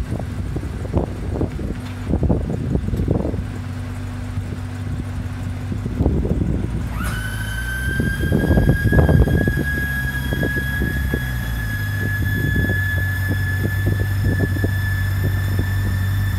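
Car-hauler trailer's hydraulic lift deck lowering a car: a steady high whine starts suddenly about seven seconds in and holds, creeping slightly up in pitch. Under it runs a low engine idle, with scattered clunks and knocks from the deck.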